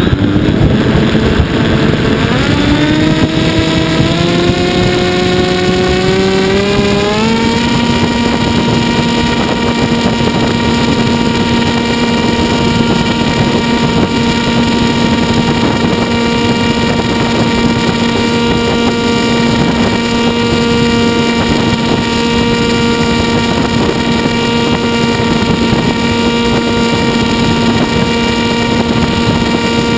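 Model airplane's motor and propeller, heard from on board, throttling up with a pitch that rises for about seven seconds and then holds steady at a high setting as the plane climbs. Wind rushes over the microphone throughout.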